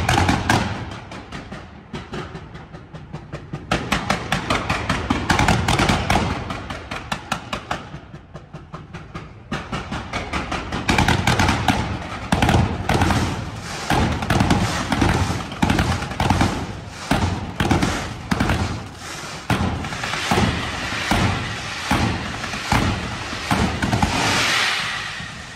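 Fireworks display: a dense barrage of bursts and crackling reports, several bangs a second. It eases off briefly about eight seconds in, then builds to a continuous crackle near the end and fades.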